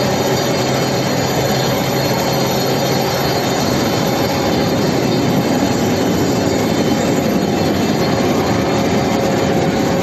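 Steady industrial machinery noise from a steel billet induction heating line: a loud, even din with a steady hum running through it.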